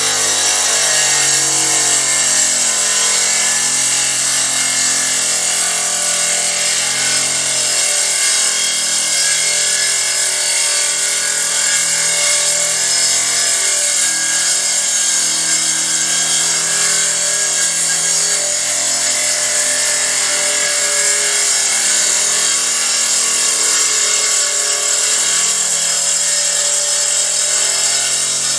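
Electric circular saw on a homemade swing-blade sawmill, running steadily as it rips through a coconut palm log.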